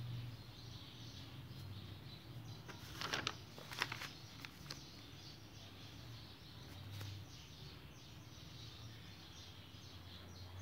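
Faint room noise with a steady low hum, broken about three to four seconds in by a brief run of paper rustles and clicks as the notebook pages are handled.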